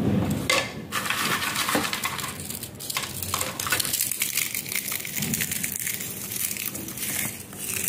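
Crisp fried papri (flour wafers) being crushed by hand and crumbled over chana chaat: a dense run of dry crackling and crunching.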